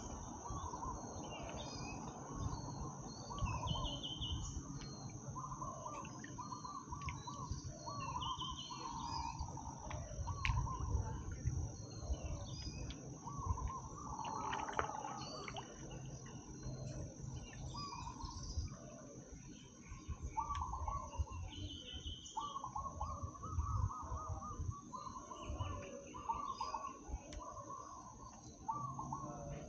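Birds chirping and calling over and over, with a steady high insect drone underneath and a low rumble beneath it all.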